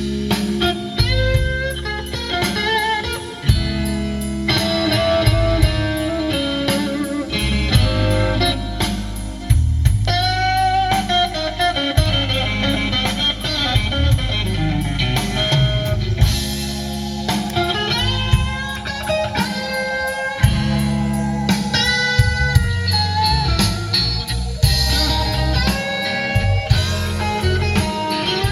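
Blues-style music: an electric guitar plays a melody with bending notes over a heavy bass line, with no singing yet.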